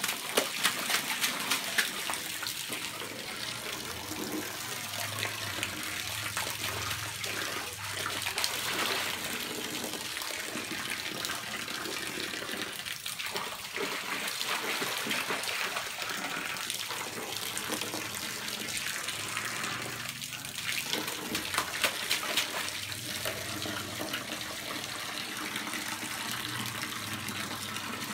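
A stream of water pouring steadily into a shallow inflatable pool, with a child splashing in the water. The splashes are loudest in the first couple of seconds and again about two-thirds of the way through.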